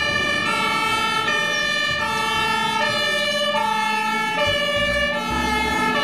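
Toy fire truck's electronic siren sound, a buzzy tone that steps up and down in pitch about every three-quarters of a second.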